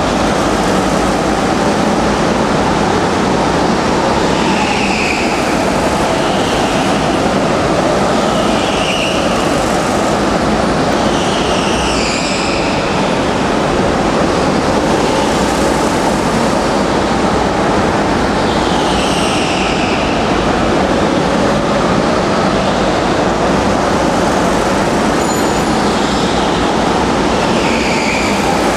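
Racing go-karts running laps on an indoor concrete track, a loud steady engine din inside a large hall, with brief tyre squeals in the corners every few seconds.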